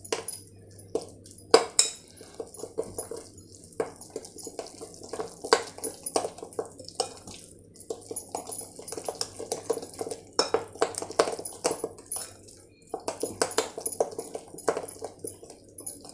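Metal spoon stirring a thick yogurt-and-spice marinade in a bowl: irregular scrapes and clinks of the spoon against the bowl, with soft wet squishing.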